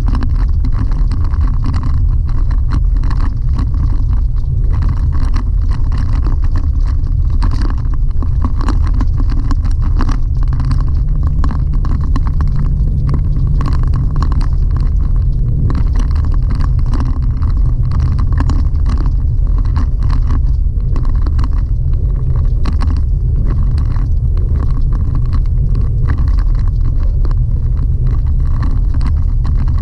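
Chevrolet Colorado ZR2 pickup driving steadily on a gravel dirt road, heard from inside the cab: a constant low road and engine rumble with many small clicks and rattles.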